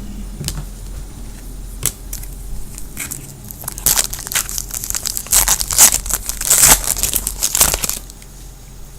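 Foil wrapper of a trading-card pack crinkling and tearing as it is ripped open, a few light clicks first, then a dense crackle for about four seconds that stops abruptly.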